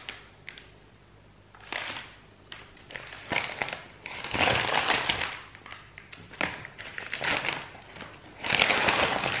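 Brown kraft-paper mailer bag crinkling in several short bursts as a hand rummages inside it and draws items out. The longest bursts come about halfway through and near the end.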